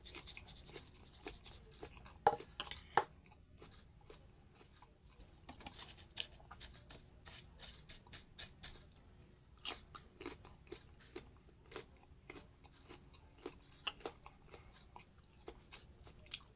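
Close-up crunchy bites and chewing of firm mango, irregular crisp crunches, two of them sharp and loud about two and three seconds in.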